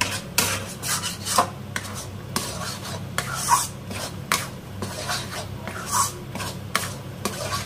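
Metal spatula scraping and stirring thick mawa filling around a stainless steel kadhai: repeated rasping scrapes, roughly two a second and unevenly spaced, as the mawa is roasted.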